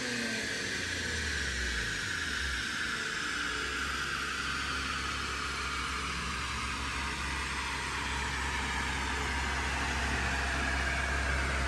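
Infiniti Q50 Red Sport's VR30DDTT twin-turbo 3.0 L V6, breathing through 3-inch resonated downpipes and catback exhaust, drops back to idle in the first second after a dyno pull and then idles steadily. A faint whine slowly falls in pitch throughout.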